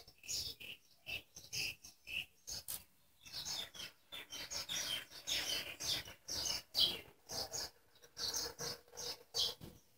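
Small birds chirping in short repeated calls, several a second, mixed with light clicks and taps of small parts being handled.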